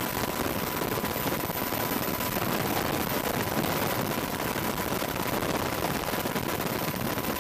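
AH-64 Apache attack helicopter's rotor chopping in a fast, steady beat as it hover-taxis low along the airfield, with a thin steady high whine running under it.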